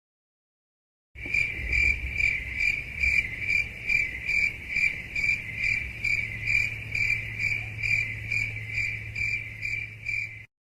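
Crickets chirping, the meme sound effect for an awkward silence: a high chirping that pulses about twice a second over a low hum. It starts about a second in and stops just before the end.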